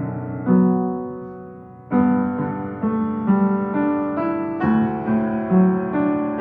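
Piano music: a slow melody of single notes with clear, sharp attacks, a long note held near the start fading away before the playing resumes about two seconds in.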